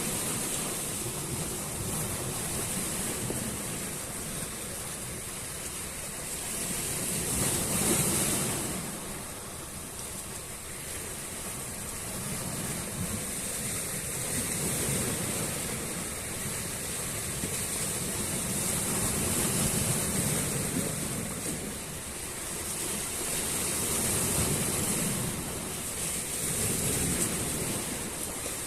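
Sea waves breaking and washing up a shore, a continuous rush that swells and eases every few seconds, loudest about eight seconds in.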